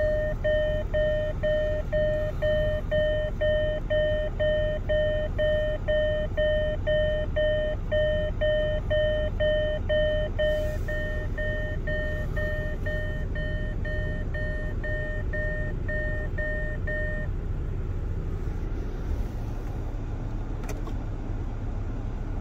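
Land Rover Discovery 2 warning beeper sounding a steady beep, about three a second, while the self-levelling air suspension changes ride height. It stops about 17 seconds in, leaving the low hum of the running vehicle, and a single click comes near the end.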